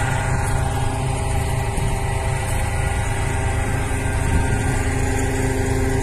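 Heavy truck-mounted crane's diesel engine running steadily, a continuous low drone.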